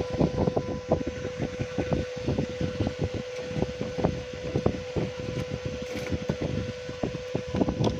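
A steady electrical hum on one high tone, under frequent small irregular knocks and rubs from handling tools on the workbench while a phone board is desoldered.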